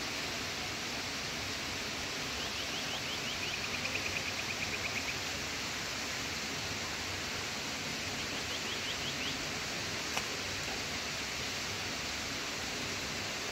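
Steady rushing noise, with a rapid series of short high chirps about two and a half seconds in and again near nine seconds in, and a single faint click near ten seconds.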